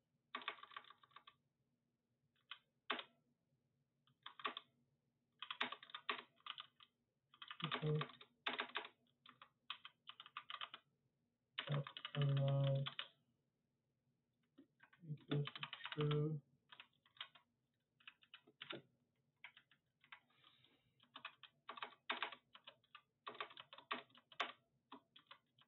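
Computer keyboard typing in quick bursts of keystrokes with short pauses between them, as code is entered. A few short hums of a voice fall between the bursts.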